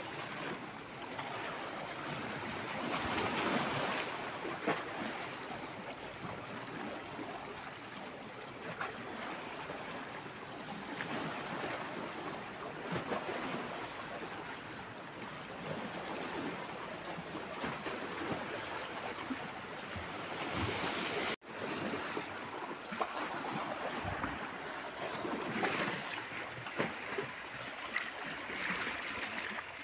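Small waves washing and splashing over shoreline rocks on a calm sea, the wash swelling and easing every few seconds. The sound cuts out for an instant about two-thirds of the way through.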